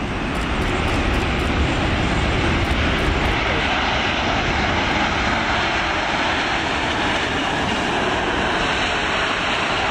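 Boeing 787 Dreamliner's twin turbofans at high thrust during its takeoff roll: a loud, steady jet rush with a deep rumble underneath.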